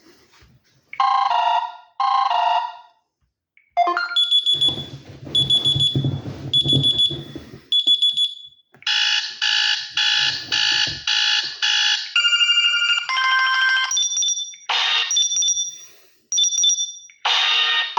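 Samsung Galaxy Mini 2 GT-S6500D playing a string of its built-in electronic alert tones through its loudspeaker, one short tone after another. First come two quick chimes, then a run of high repeated beeps over a low hum, then faster beep patterns and further short melodic figures.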